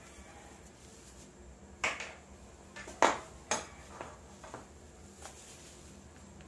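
About six sharp clacks and clinks over a few seconds, the loudest in the middle: small plastic puto molds and kitchen utensils knocking against each other and the pot while puto is being made.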